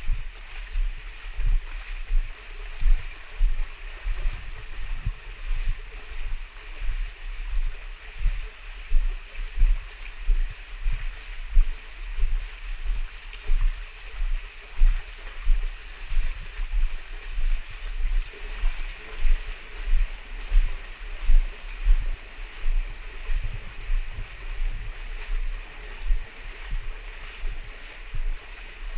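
A person wading through a cave stream: rhythmic sloshing and splashing strides, about three every two seconds, over the steady rush of flowing water.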